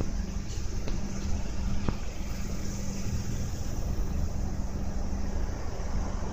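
Steady rumble of road traffic from an adjacent expressway, with a low engine hum standing out in the first couple of seconds.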